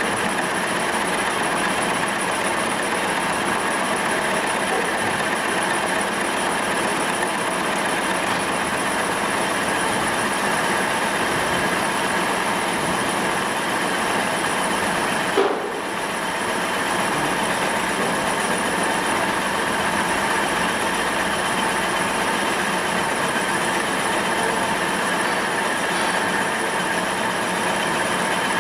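TM807A cylinder boring machine running, its electric motor and spindle drive giving a steady mechanical whirr with a constant pitch. One short click sounds about halfway through.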